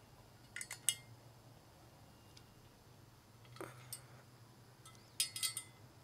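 Small metal clicks and clinks of a hex key working set screws inside a wheel's center bore: two clicks about half a second in, a brief scrape near the middle, and a quick run of clinks about five seconds in.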